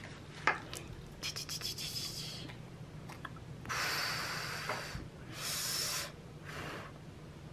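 Light clicks and ticks of a Pelikan M800 fountain pen's screw cap being unscrewed and put down on the desk, followed by three soft breaths.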